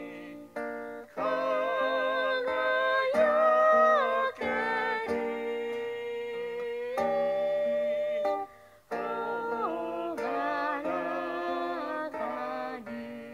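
A hymn sung with acoustic guitar accompaniment, a recording played back on an iPad. There is a short pause about two-thirds of the way in.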